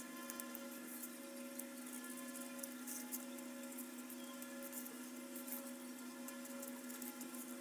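Small corded handheld electric tool running with a steady high motor whine, with scratchy crackles as it works on the cardboard.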